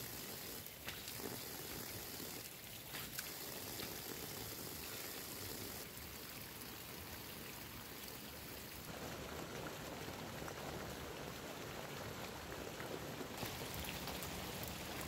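Water pouring out of a bamboo tube and splashing onto soil, heard as a steady hiss. The sound changes abruptly several times.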